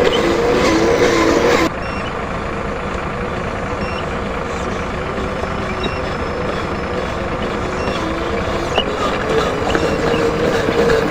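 Truck engine running steadily. Its wavering hum drops out abruptly after about two seconds, leaving a steadier engine noise, and comes back near the end.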